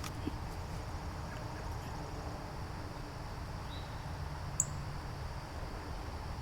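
Steady low outdoor background noise with a single short, sharp, high bird chirp about four and a half seconds in.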